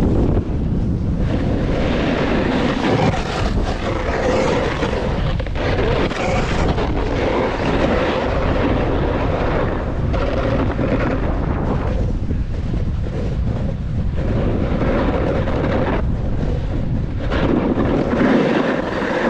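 Wind buffeting a GoPro's microphone during a ski run downhill, a steady low rumble, with the hiss and scrape of skis on packed snow swelling and fading with each turn.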